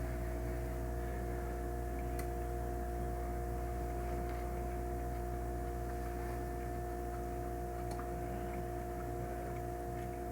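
A steady low hum with several unchanging tones over it, and a faint click about two seconds in and another near eight seconds.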